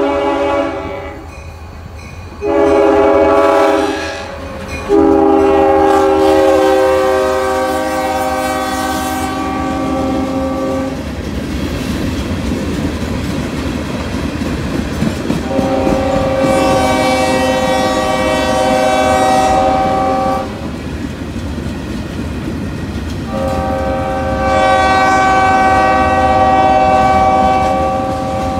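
Freight locomotive's air horn sounding a series of chords. One cuts off about a second in, then comes a short blast and three long blasts of five to six seconds each. Between and beneath them the freight cars rumble and clatter over the rails as the train rolls through a road crossing.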